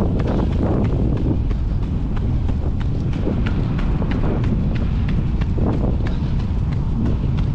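Wind buffeting the microphone with a steady rumble, over quick, regular footsteps of runners on brick paving.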